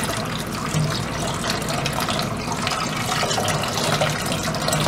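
Kitchen faucet running steadily onto rice in a mesh strainer, the rinse water pouring through into a plastic bowl in a stainless steel sink.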